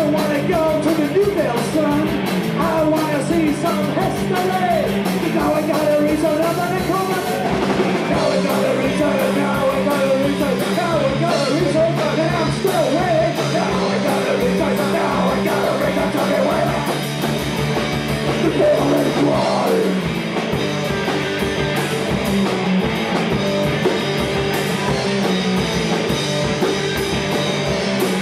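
Punk rock band playing live: guitar, bass and drums with a lead vocal sung over them.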